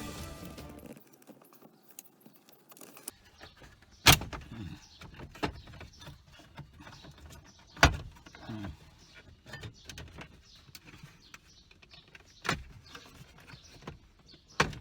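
Car parts being unclipped and handled during disassembly: scattered sharp clicks and knocks, the loudest about four, eight and twelve and a half seconds in and again near the end.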